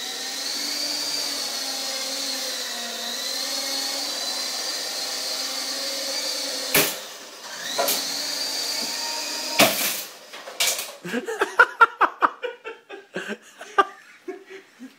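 RC helicopter's motor and rotor whining steadily, the pitch wavering a little as the rotor speeds up and slows. About seven seconds in come several sharp knocks, with the whine returning briefly between them, then a fast run of clicks and rattles.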